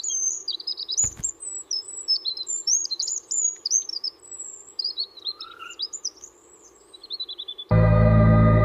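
A small songbird singing: quick high chirps and warbled phrases, ending in a fast falling trill. A soft thump about a second in, and sustained organ-like music comes back in near the end.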